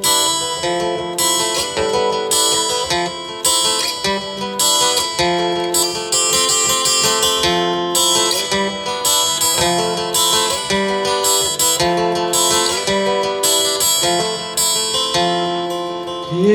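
Music: acoustic guitar strumming chords that change at a steady pace.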